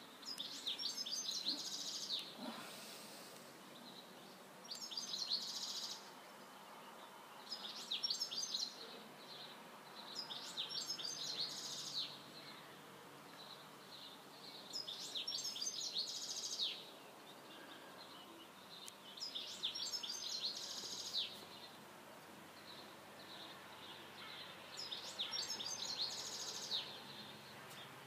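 A songbird singing the same short, high phrase of quick descending notes over and over, about seven times, each a second or two long with a few seconds' pause between, over a faint steady background hiss.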